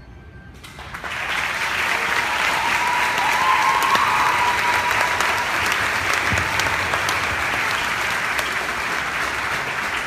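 Audience applauding in a school gymnasium, breaking out about a second in as the band's piece ends and staying loud and steady.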